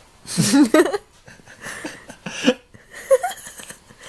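A woman laughing softly in a few short bursts, the loudest about half a second in.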